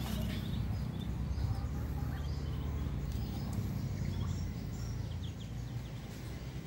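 Muscovy ducklings peeping faintly in short scattered chirps over a steady low rumble.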